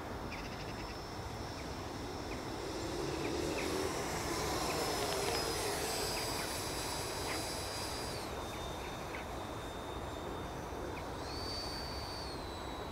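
Arrows Hobby BAE Hawk RC jet's electric ducted fan whining in flight, its high tone shifting with throttle and distance. It grows louder about four to six seconds in, steps down in pitch around eight seconds, and briefly rises and falls again near the end.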